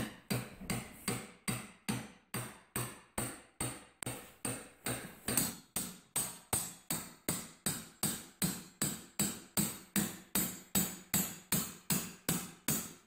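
Wooden-handled claw hammer tapping a 5/8-inch steel bolt home through steel reinforcing plates and a 2x4, in a steady run of metallic blows a little over two a second.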